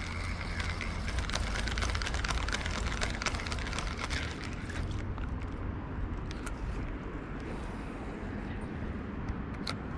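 Spinning reel being cranked fast, a dense run of ticks with a whirring tone for about the first five seconds, then a single sharp click near the end, over a low steady rumble.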